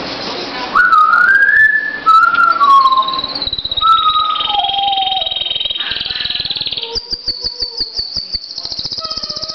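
Pet canary singing a long, varied song. It starts about a second in with sliding whistled notes, runs on in rolling trills, and turns into a fast rattling trill near the end.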